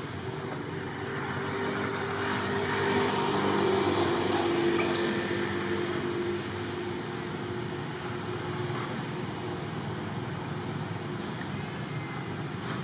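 A motor vehicle engine running, growing louder to a peak about four seconds in and then fading, over an outdoor background hum. Two short high chirps cut through, one near the middle and one near the end.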